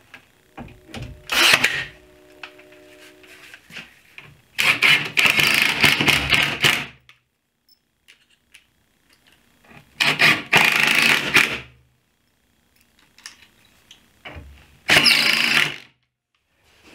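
Cordless drill running in four bursts of one to two and a half seconds, driving screws into the cabinet.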